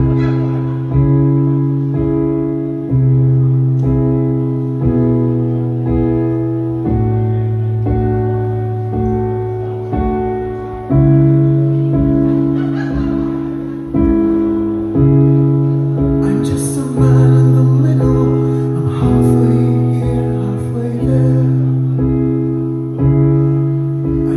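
Live rock band playing: sustained chords struck about once a second over a bass line, the chord changing every few beats. Cymbals come in about two-thirds of the way through.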